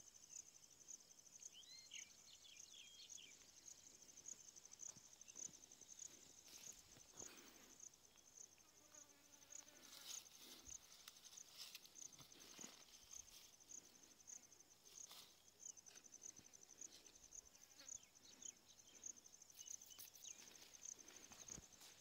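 Faint cricket chirping steadily in a high, even pulse, about two chirps a second, with a few short bird calls about a second in and soft rustling of plants.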